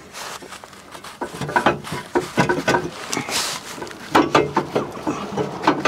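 Irregular light clinks and knocks of metal tools and car parts being handled, some with a brief metallic ring.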